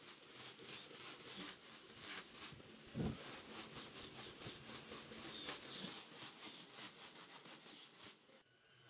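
Sanding disc on an angle grinder rubbing over wooden slats in many short, scratchy strokes. A single low thump about three seconds in.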